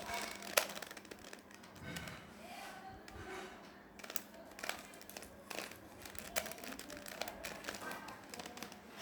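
Plastic Rubik's cube being twisted by hand: irregular clicks and rattles as its layers turn.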